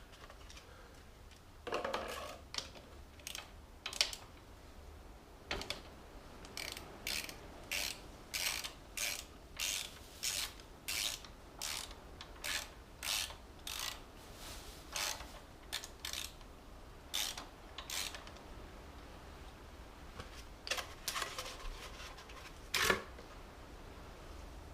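Socket ratchet wrench clicking in a series of short strokes, about one or two a second, as the oil drain plug is worked loose.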